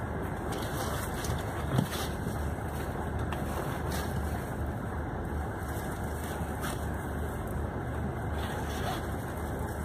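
Steady low rumble of a long-distance coach's diesel engine heard from inside the passenger cabin, with a single short knock about two seconds in.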